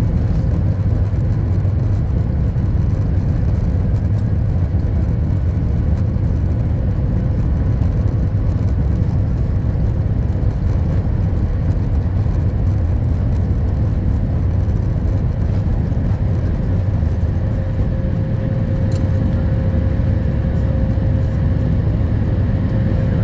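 Cabin noise of a Boeing 737 MAX 8 on its take-off roll: the CFM LEAP-1B engines at take-off power and the rumble of the runway make a steady, loud, deep noise. A faint steady hum grows a little stronger in the last few seconds as the jet nears lift-off.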